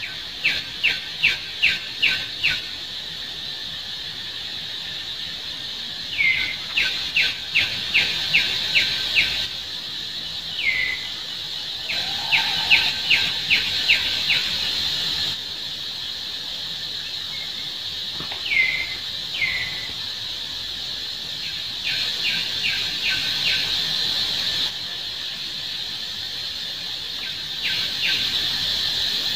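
Forest ambience of birds and insects: runs of short, sharp chirps, several a second, come in bursts of six to eight notes, with a few single downward-slurred calls between them. A steady high insect drone runs underneath.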